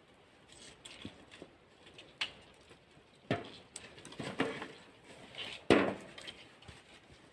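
A few scattered knocks and clatters of things being handled and set down, the loudest a little under six seconds in.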